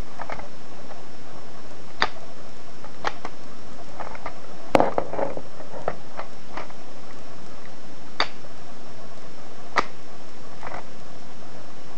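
Scattered plastic clicks and light rattles of a Lego model rifle's bricks being handled and worked, about a dozen separate clicks with the loudest cluster about five seconds in, over a steady hiss.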